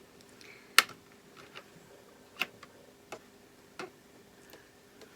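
A few separate sharp clicks and taps, the loudest about a second in, from a power plug being pushed into the indoor hydroponic garden unit and the unit being handled, with a faint steady hum underneath.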